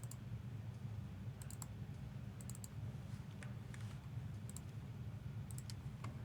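Light computer keyboard clicks in small irregular clusters, roughly one cluster a second, over a steady low hum.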